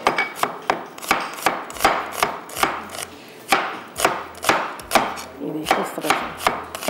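Kitchen knife chopping onion finely on a cutting board: quick, fairly even knocks, about three a second, with a short break about halfway through.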